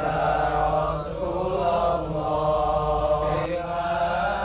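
A large group of men chanting shalawat, devotional praise of the Prophet Muhammad, in unison with long held notes that shift slowly in pitch.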